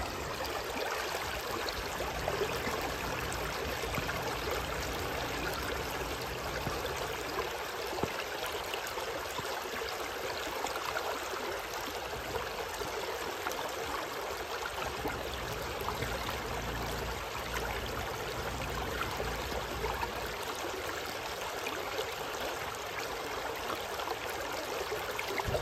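Shallow river water flowing steadily over and between riverstones of a low stone weir, a continuous rushing trickle with small splashes.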